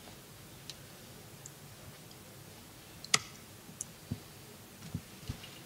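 Scattered clicks and light taps from someone working a computer, with one sharp click about three seconds in, over faint room noise.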